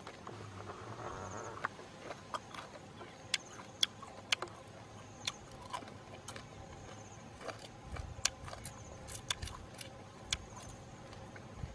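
Scattered sharp clicks and crackles from eating grilled lizards off a wooden skewer, at uneven intervals. A faint high insect chirp repeats every couple of seconds.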